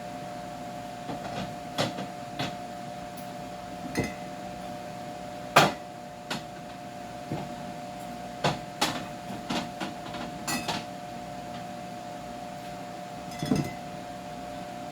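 Food containers, jars and bottles knocking and clinking as they are set back onto refrigerator shelves: a string of separate sharp knocks, the loudest about five and a half seconds in, over a steady hum.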